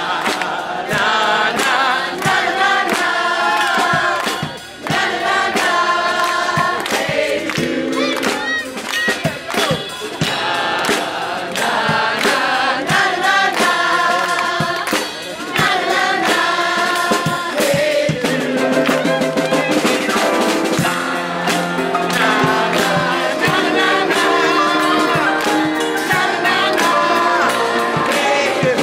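Grand piano played live with a man singing over it.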